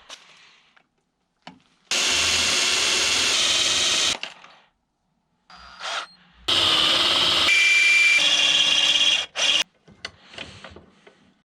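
Electric drill boring a new hole through the steel brake pedal for a brake booster delete kit, run in two bursts of about two and three seconds.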